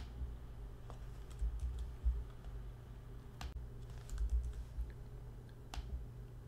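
A few sharp clicks and soft knocks of plastic parts as a small switch is pushed and fitted into a toy RC car's plastic chassis by hand, over a steady low hum. The two loudest clicks come about halfway through and near the end.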